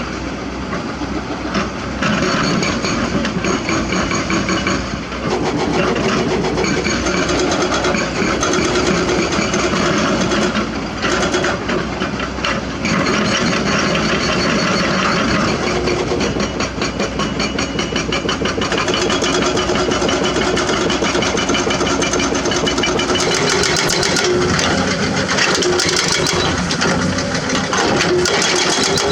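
Excavator's diesel engine running steadily under work, with a continual clatter and knocks from the machine and rock.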